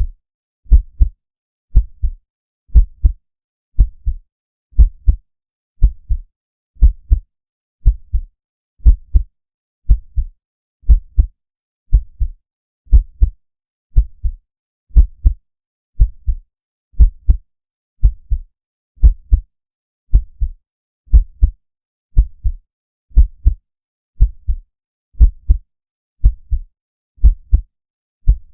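Heartbeat sound effect: a slow, steady lub-dub of deep bass double thumps, about one beat a second, with silence between beats.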